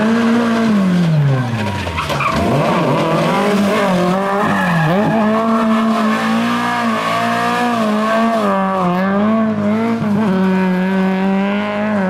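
Classic Lada rally car's four-cylinder engine revving hard and held high as the car slides sideways, the revs dipping briefly a few times, with tyres scrabbling over a loose, dusty surface.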